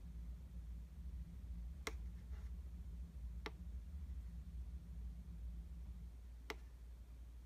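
Faint steady low electrical hum from the powered Onn 37-inch soundbar, turned up to full volume with nothing playing. Three separate sharp clicks stand out over it, spread a second or more apart.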